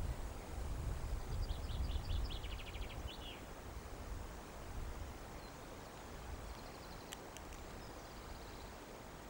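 Two faint, quick trills of high bird chirps, one about a second and a half in and another past the middle, over a low rumble that fades away. A single click sounds near the middle.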